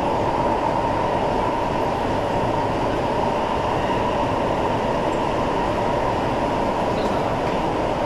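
SMRT C651 metro train running along the track, heard inside the carriage: a steady rumble of wheels and running noise. The noise swells just before and then holds even.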